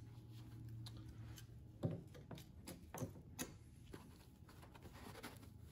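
Light clicks and taps of hands handling a 12-inch action figure and its plastic accessory tray: a handful of small knocks about two to three and a half seconds in, over a faint low hum.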